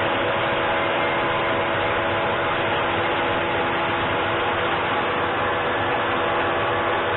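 Electric power saw motor running steadily, a constant hum with a few steady tones under a dense hiss.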